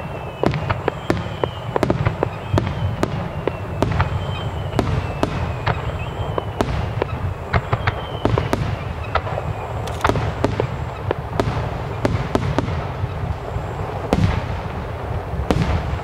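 Fireworks finale barrage: aerial shells bursting in quick succession, many sharp bangs about two or three a second over a continuous low rumble, with a few faint falling whistles.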